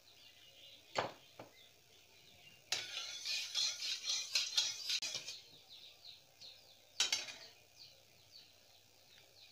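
Flat metal spatula knocking and scraping against the inside of an aluminium kadai as it spreads oil. There is a single knock about a second in, a stretch of scraping strokes from about three to five seconds, and another knock near the end.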